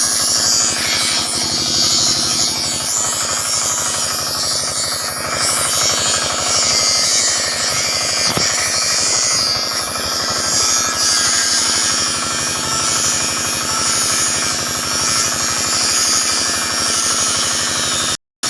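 A power tool cutting steel reinforcing bars: a loud, steady machine noise with a fast, even chatter and a hissing high edge.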